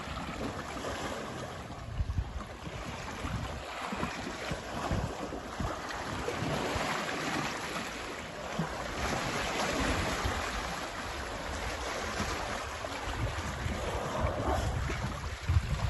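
Water splashing and sloshing as African elephants wade and move about in a lake, with wind buffeting the microphone in low rumbling gusts.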